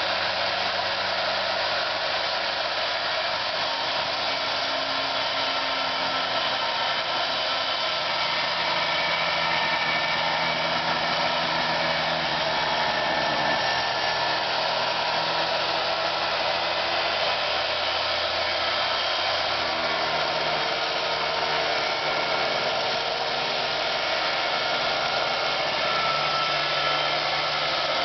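Handheld circular saw ripping a 2x4 lengthwise, running steadily under load through one long, slow cut.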